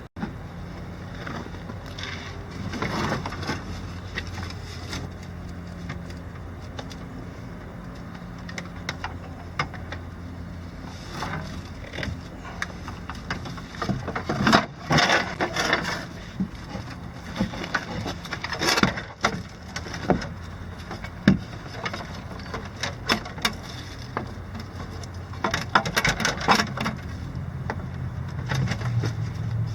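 Scattered knocks, clicks and clatter of parts and hand tools being handled while hot tub spa pack equipment is fitted, over a steady low hum.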